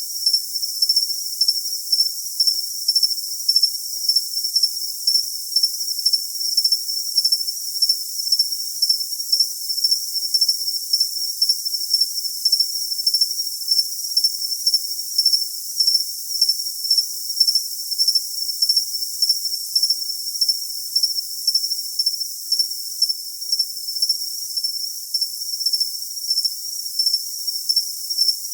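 Cricket chirping continuously: a high-pitched, evenly pulsed trill with no lower sounds at all.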